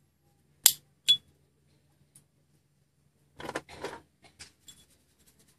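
Two sharp metallic clicks from a Dupont lighter's lid being worked, the second with a short bright ring, then a brief burst of rattling and a few light ticks as the lighter is handled about three seconds in.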